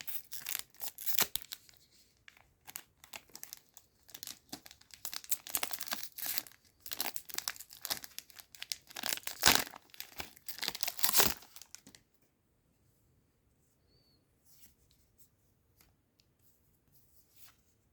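A trading card booster pack being torn open, its wrapper crinkling and tearing in irregular crackles for about twelve seconds. The wrapper then goes nearly quiet, with only a few faint taps.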